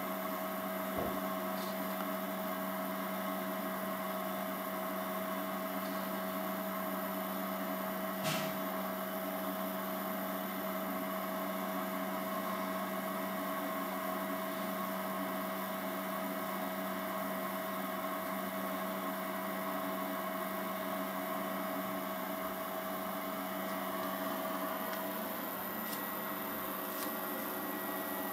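Steady machine hum made of several constant tones, from the extruder's stepper motor and its driver. There is a sharp click about eight seconds in.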